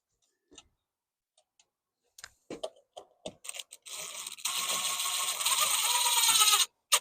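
A screw that is giving trouble going in, being driven into the wall to hold the doorbell mounting plate. A few sharp clicks and scrapes come first, then about three seconds of continuous grinding that cuts off suddenly near the end.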